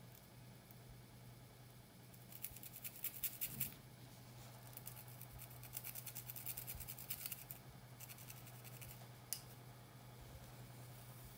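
A bundle of thin wooden sticks scratching and raking through thick, coily hair along a parting, in quick runs of fine scratches: a short run about two and a half seconds in, a longer one from about four and a half to seven and a half seconds, and a single sharp click near the end. A faint low hum runs underneath.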